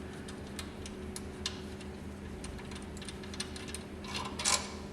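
Scattered light clicks and taps of small metal parts and tools being handled, over a faint steady hum, with a brief rustle about four and a half seconds in.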